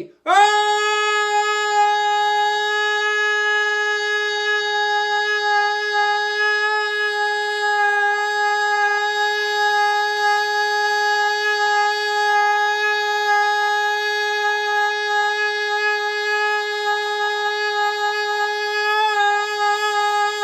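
Blender motor running at high speed with a steady high-pitched whine that spins up quickly at the start and then holds one pitch.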